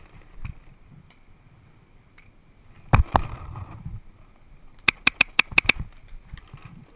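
Paintball marker firing: two sharp shots about three seconds in, then a rapid string of about seven shots, roughly eight a second, a couple of seconds later.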